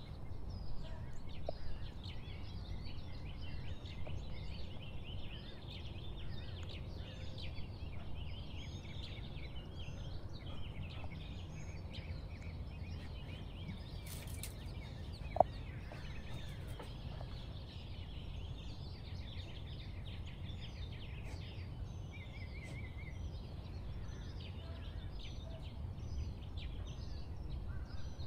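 Many birds chirping and calling over a steady low rumble, with one sharp click about fifteen seconds in.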